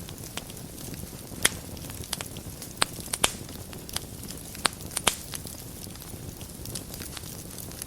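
Wood fire burning in a fireplace: a steady low rumble of flames with scattered sharp crackles and pops, a few louder ones in the middle.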